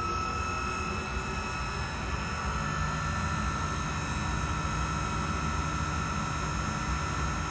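Wind tunnel fan running steadily at about half its top speed (25 Hz on its drive): a steady rush of air with a constant high whine over a low hum.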